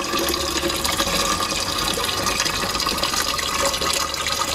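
Water pouring from a plastic jug into a car's windshield washer fluid reservoir, a steady splashing pour with no break.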